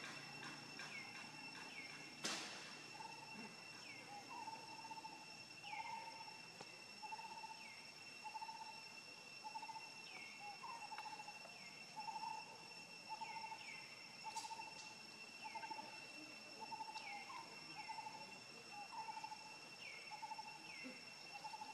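Forest ambience of insects and birds: a steady high-pitched insect drone, short falling chirps repeating every second or so, and a lower note repeating a little more than once a second. One sharp click comes about two seconds in.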